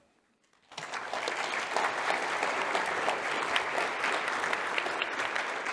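Audience applauding: near silence, then steady clapping from a hall full of people that begins about three-quarters of a second in and keeps going.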